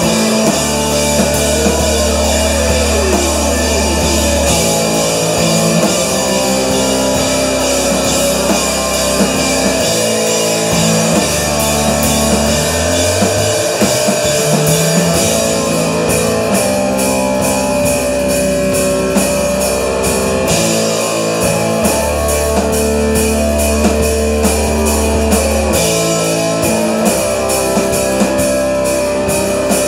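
Live rock band playing loudly: electric guitars, bass guitar and drum kit in a dense, sustained passage, with a quick regular cymbal beat coming in about halfway through.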